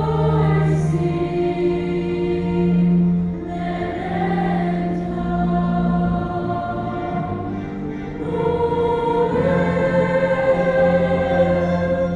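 A large girls' choir singing a Christmas carol in long held notes, the sound filling out again about two-thirds of the way through.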